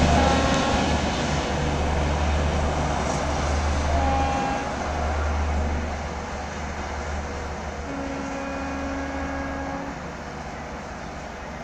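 Passenger express train's rear generator car going past, its low diesel drone and wheel and rail noise fading steadily as the train pulls away down the track.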